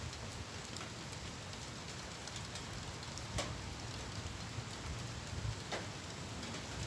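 Light rain falling: a steady hiss with scattered sharp ticks of drops, the clearest about three and a half seconds in and again near six seconds.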